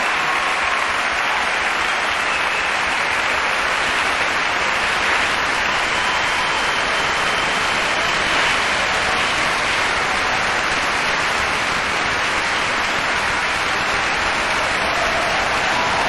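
Concert hall audience applauding steadily.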